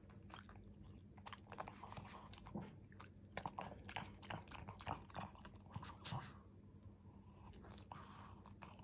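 A pug chewing and smacking a mouthful of soft minced food: a fast, irregular run of small wet clicks that thins out after about six seconds.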